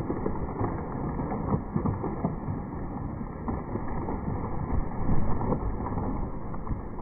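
Wind buffeting the microphone: an uneven low rumble with a louder gust a little past five seconds in.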